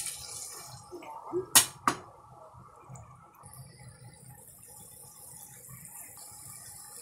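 Water being poured into a frying pan of curry chicken wings and vegetables, the pour ending just after the start. About a second and a half in come two sharp knocks, the loudest sounds, and then the liquid in the pan simmers with a faint steady hiss.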